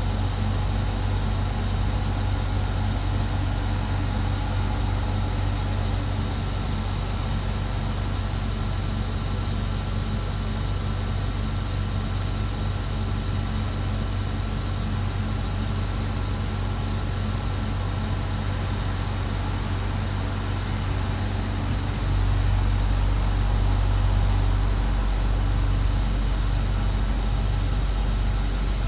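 Diesel engines of an Alstom Régiolis bi-mode regional train running steadily while the train stands at the station, a continuous low hum. The hum swells about 22 seconds in.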